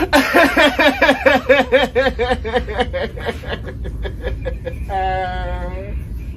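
A man breaking into a hysterical laughing fit: loud rapid bursts, about four a second, that trail off, then one long held wail about five seconds in.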